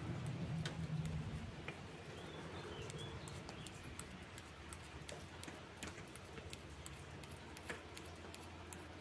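Faint scattered clicks and light scraping as a small magnet is stroked along a steel sewing needle to magnetise it, over a low steady hum.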